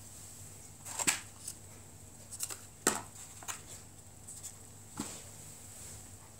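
Handling noise: a scattering of light taps and clicks as the phone and the white cardboard box packaging are picked up and moved, over a faint steady hum.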